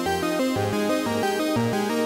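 Background music: a steady, quick run of pitched notes, several a second.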